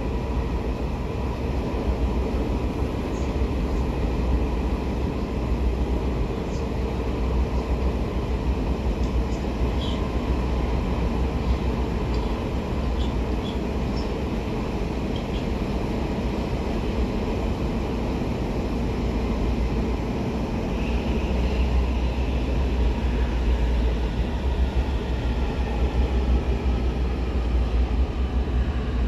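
Munich U-Bahn train running through a tunnel, heard from inside the passenger car: a steady low rumble of wheels on rails with a faint electric motor whine. Near the end the whine falls in pitch as the train slows for the next station.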